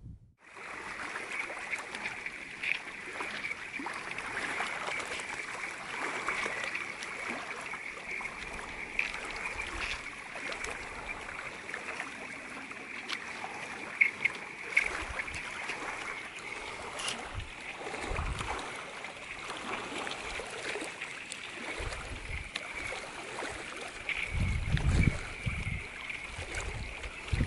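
Thin new skim ice at a freezing lake's edge hissing and tinkling as small waves lap against it and break it up, with many small ticks and crackles. A few low gusts, like wind on the microphone, come in near the end.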